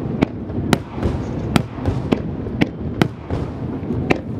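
Aerial firework shells bursting in quick succession: about seven sharp bangs at irregular intervals of roughly half a second, over a continuous low rumble.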